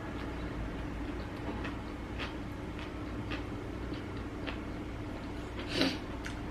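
Close-up eating sounds of a person chewing a hot dog with jalapenos: a string of small wet mouth clicks about every half second, with one louder click near the end.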